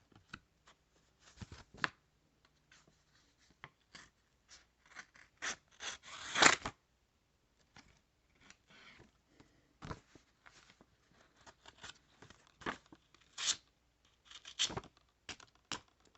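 Boker Kalashnikov Mini Dagger automatic knife cutting and stabbing into a test material in short, scattered strokes that sound like tearing and snipping. The loudest cut comes about six and a half seconds in.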